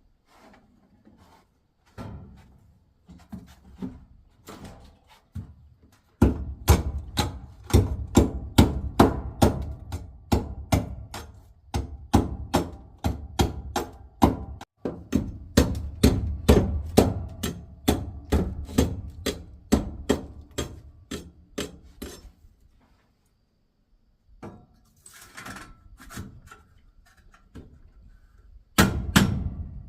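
A steady series of sharp knocks, about two or three a second, preceded by a few scattered ones. It stops, then two louder strikes come near the end.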